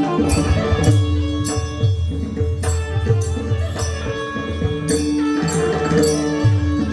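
Indian devotional bhajan music: long held notes over a steady rhythm of hand-drum beats and small cymbal clashes.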